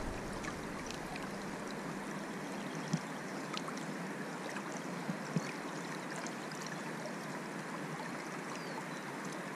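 Steady rushing of river water flowing around the wading angler, with a few faint ticks about three and five seconds in.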